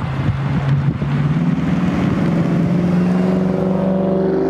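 Motor vehicle engine accelerating, its pitch rising steadily.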